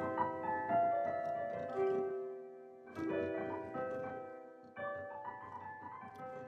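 Slow, gentle piano music: chords and single notes struck and left to ring out, fading toward the end.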